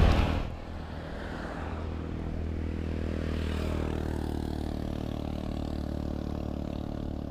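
A motor vehicle's engine running at a steady speed, with road noise.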